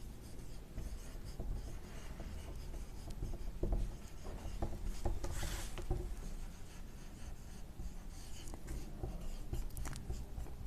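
Dry-erase marker writing on a whiteboard: short rubbing strokes and light taps, with one longer hissing stroke about five and a half seconds in.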